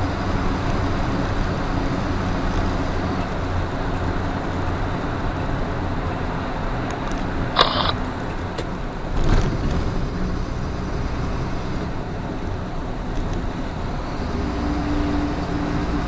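Steady engine hum and road noise from inside a truck's cab while driving. A brief high-pitched sound cuts through about seven and a half seconds in.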